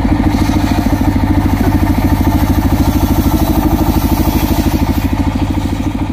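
Engine-driven circular saw blade ripping acacia wood: a high cutting hiss over the engine's steady, even pulsing, the cutting easing off about five seconds in.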